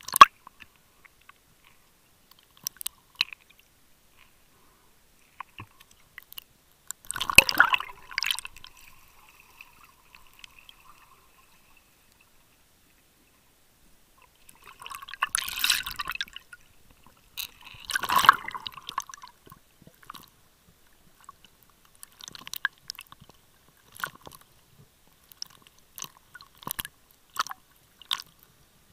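Underwater sound recorded by a submerged camera: scattered sharp clicks and crackles, with three louder bubbling, gurgling bursts about 7, 15 and 18 seconds in.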